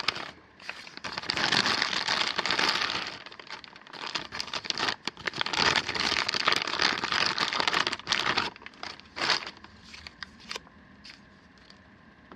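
Product packaging crinkling and rustling as it is opened and unpacked, in two long stretches, followed by a few sharp clicks and handling noises before it settles near the end.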